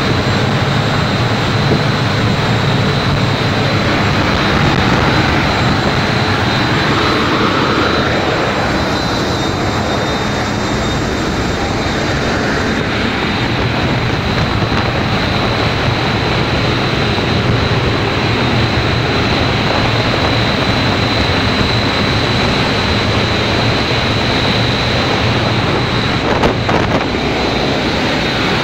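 Solar Mars 100 industrial gas turbine, about 10 MW, running steadily: a loud, even noise with a steady high whine over it.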